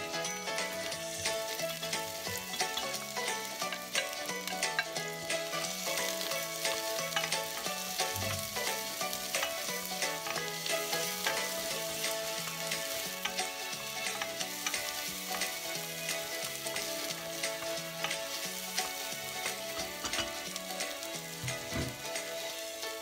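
Chopped onion and garlic sizzling and crackling in hot oil in a stainless steel pot, stirred with a wooden spoon, over quiet background music.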